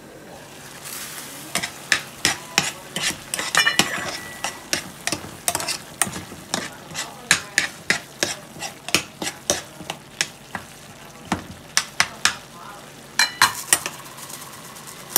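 A metal spoon stirring a simmering tomato sauce in a small frying pan, clinking and scraping against the pan about once or twice a second, with a quick run of louder clinks near the end. A soft sizzle runs underneath.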